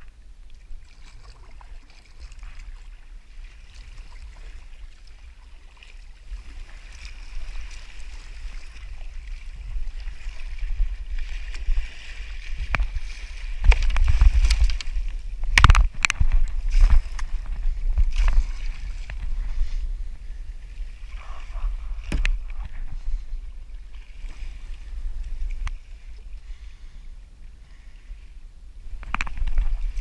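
Wind rumbling on the microphone and water sloshing around a plastic fishing kayak at sea. About halfway through, a flurry of sharp splashes and knocks as the paddle is jabbed into the water at the hammerhead shark beside the boat, with another splash near the end.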